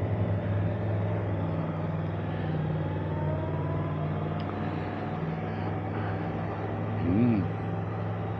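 Motorcycle engine running at low, steady revs while riding, with a fainter whine rising in pitch over the first few seconds. A short rising-then-falling tone sounds about seven seconds in.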